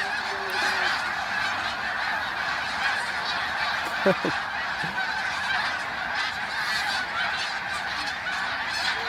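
A huge flock of snow geese flying overhead, calling all at once: a dense, unbroken din of honks, with one louder call standing out about four seconds in.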